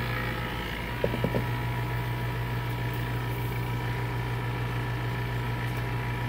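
Vacuum pump of a valve-body vacuum tester running with a steady low hum, with a couple of light clicks about a second in.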